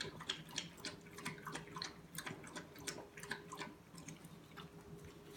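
Pit bull puppy making faint, irregular wet clicks and smacks with her mouth, several a second, over a low steady hum.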